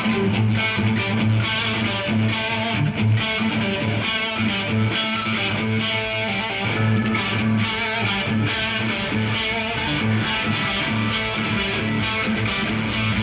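A live hard rock band playing an instrumental passage, led by electric guitar over bass guitar in a steady rhythm, with no singing.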